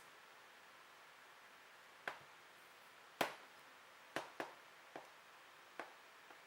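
Drill bits clicking against a magnetic bit holder: seven short, sharp clicks at uneven intervals, the loudest about three seconds in.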